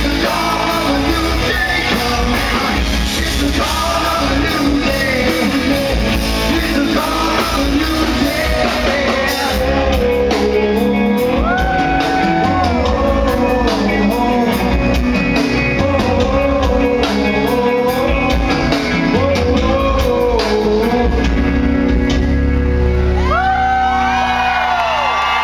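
Live rock band playing loud, with a male lead singer belting over electric guitar and drums, heard from the audience in a club. The voice holds a long note about halfway through and climbs into another long held note near the end.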